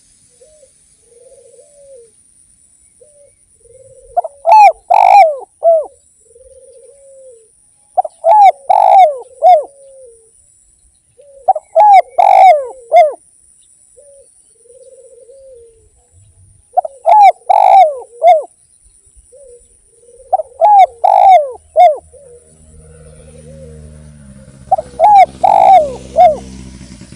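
Spotted dove cooing: six loud phrases of a few coos each, about every four seconds, with softer coos in between. A faint steady high whine runs underneath, and a low hum comes in near the end.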